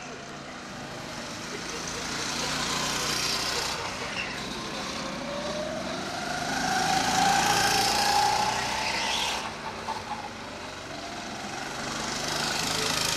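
Go-kart engine revving as a kart accelerates along the track. Its pitch rises and it grows louder about halfway through, then fades, and it swells again near the end as a kart comes closer.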